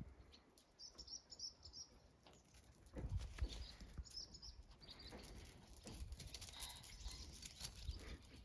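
Small birds chirping faintly, in short high calls, with a few soft low thumps about three seconds in.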